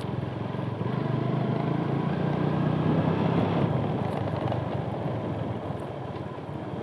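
Motorcycle engine running as the bike rides along, growing louder toward the middle and easing off again.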